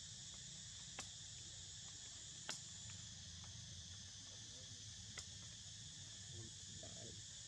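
Faint, steady high-pitched insect chorus, with three sharp clicks, the loudest about two and a half seconds in.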